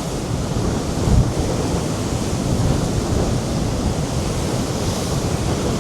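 Large sea waves breaking at high tide, a continuous rushing surf, with strong wind buffeting the microphone and a heavier gust thump about a second in.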